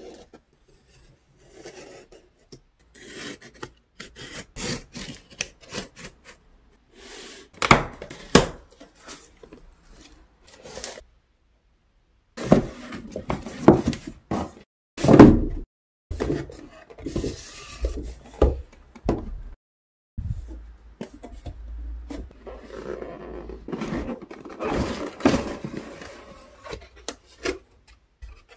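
Cardboard boxes being opened by hand: a blade slitting packing tape, then flaps pulled back and a long inner box scraped and slid out of the outer carton, with rubbing, scraping and knocks of cardboard. The loudest knocks come about halfway through.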